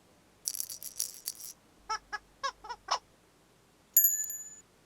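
Cartoon sound effects: a rattling shake, then five short squeaky notes, then a single bright chime that rings briefly and fades.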